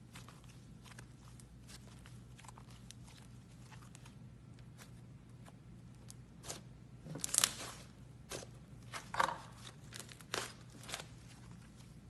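Slime being pressed and squished by hand, giving a run of small crackling pops and clicks, with a few louder crackles between about six and eleven seconds in.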